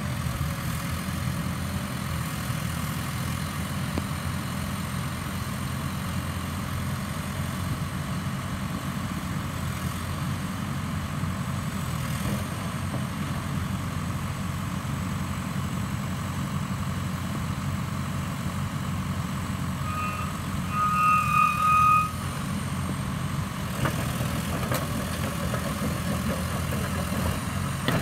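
Liebherr R9121 tracked excavator's diesel engine running steadily. About twenty seconds in, a warning beeper sounds twice, a short beep then a longer one.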